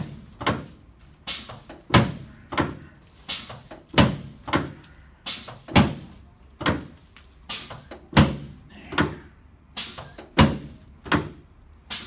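Repeated mechanical thumps from a button-operated chiropractic adjusting device, about two a second in an uneven rhythm, as it delivers thrusts up the patient's pelvis and lumbar spine.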